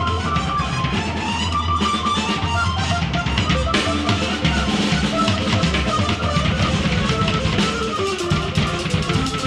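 Live noise music from a Casio keyboard and drum kit duo: loud, dense keyboard lines over continuous drumming.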